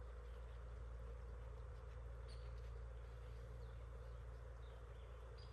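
Faint outdoor ambience: a few short, high bird chirps over a steady low hum.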